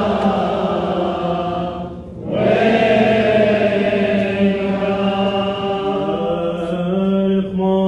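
Slow Syriac-rite liturgical chant sung by men, long held notes with a brief break for breath about two seconds in and a step to a new pitch later on.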